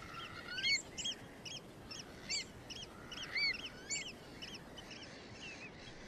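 Wading birds calling: a string of short, high piping notes that rise and fall, about three a second, thinning out after about four seconds.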